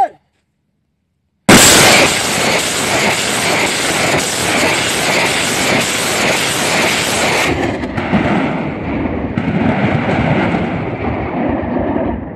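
Pinaka multi-barrel rocket launcher firing: a sudden, very loud roar of rocket launch begins about a second and a half in and holds for about six seconds, then drops to a lower rumble that fades away.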